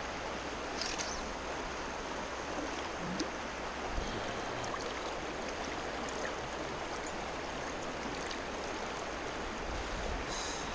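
Steady rush of creek water running through rocky pocket water, with a few faint ticks.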